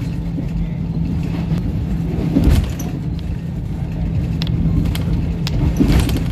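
Inside a Pakistan Railways passenger coach: a steady low rumble with a constant hum, broken by a few sharp knocks and clanks, the loudest about two and a half seconds in.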